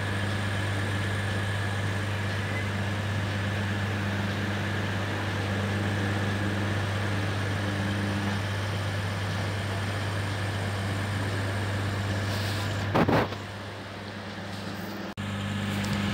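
Minangkabau Express diesel multiple unit idling at the platform: a steady low engine hum with a faint high whine above it. About thirteen seconds in there is a short sharp noise, after which the hum is quieter, and it comes back strongly just before the end.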